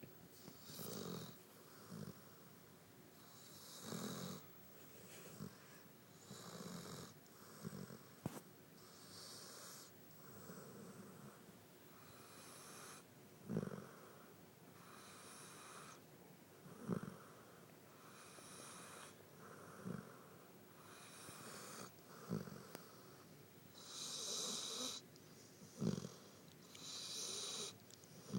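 A sleeping pet snoring softly, one breath about every one and a half to two seconds, some breaths carrying a faint wheezy whistle.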